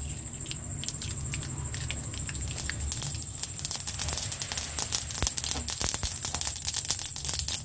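Mustard seeds frying in hot cold-pressed sesame oil in a kadai, sizzling and popping with sharp crackles that come thicker from about three seconds in. This is the tempering stage, and the popping shows the oil is hot enough.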